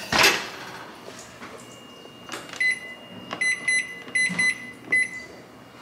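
An oven door shut with a single loud thud, then a microwave's keypad beeping at each button press: about eight short high beeps, some in quick pairs, from about two and a half seconds in.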